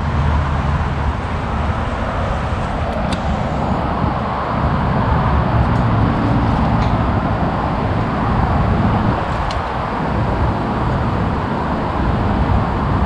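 Steady noise of freeway traffic, with a few faint clicks over it.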